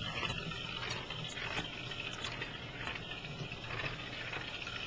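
Motorized cat toy, a toy mouse inside a clear plastic ball, rolling across a hardwood floor: a steady rumble of the plastic ball on the boards with the whir of its small geared motor and a few light clicks.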